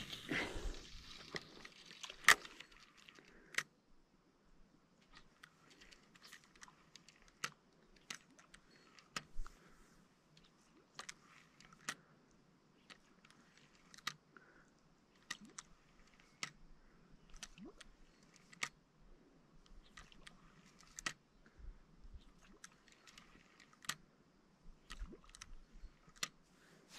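Fishing rod and reel being handled: rustling and clicks for the first few seconds, then faint, scattered sharp clicks and ticks.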